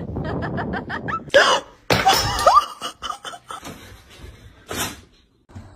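A person laughing in quick, breathy bursts, then a few louder, short noisy bursts.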